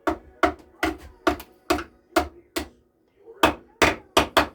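A quick series of sharp knocks, about two or three a second, with a short pause about three seconds in.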